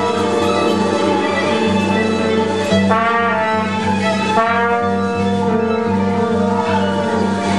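Music with long held notes over a steady low drone; a brighter chord of higher notes comes in about three seconds in and again just after four.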